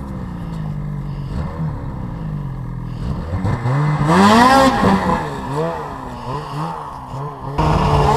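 Snowmobile engines. One revs up and down in uneven surges while a sled is worked out of deep snow. Near the end a nearer engine steps up to a louder, steady run as the camera's sled pulls away.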